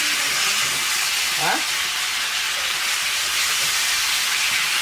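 Chicken frying in hot oil in a pan, a steady sizzle.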